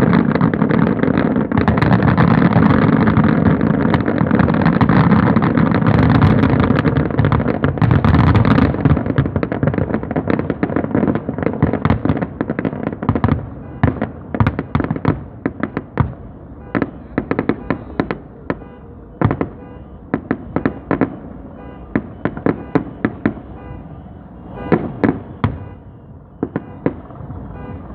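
Fireworks show: a dense, continuous barrage of overlapping bursts for about the first nine seconds, then thinning into separate sharp cracks and bangs that come more sparsely toward the end.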